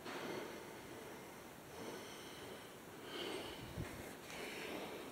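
A person breathing close to the microphone, a breath about every second and a half, with a soft low thump about four seconds in.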